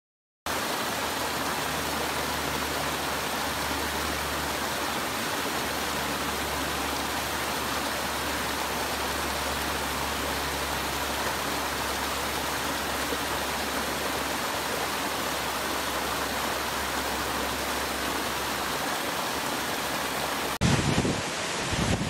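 Waterfall's rushing water, a steady even roar that starts about half a second in. Near the end it cuts abruptly to a louder, uneven rush with wind buffeting the microphone.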